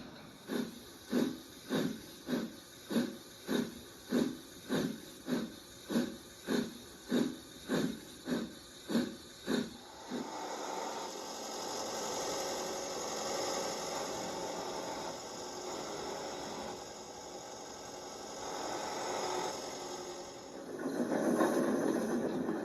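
Steam locomotive chuffing, about two exhaust beats a second, which stop about ten seconds in and give way to a steady hiss of steam that swells louder near the end.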